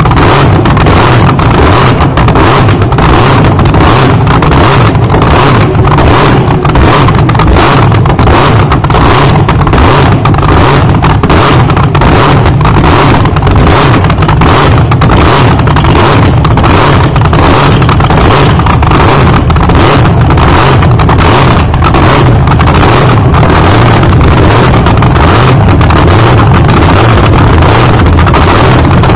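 Supercharged nitromethane-fuelled V8 of an AA/FD slingshot dragster idling, very loud and steady with an even lumpy pulse a few times a second, heard from the driver's seat right behind the engine.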